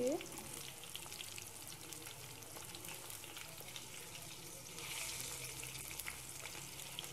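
Besan-battered eggplant slices deep-frying in hot oil in a karahi: a steady crackling sizzle that grows louder for a moment about five seconds in.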